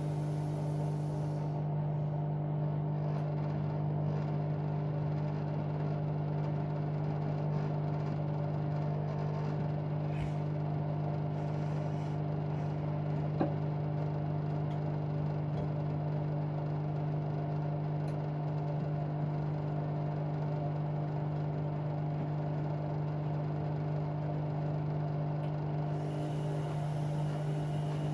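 Bauknecht WA Aquaton 1400 washing machine running a 60 °C cottons wash: a steady, even motor hum, with one faint click about halfway through.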